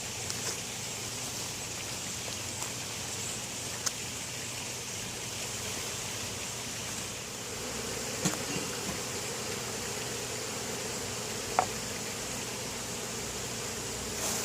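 Steady hum of honeybees buzzing around an opened hive, with a few sharp clicks of frames or tools being handled.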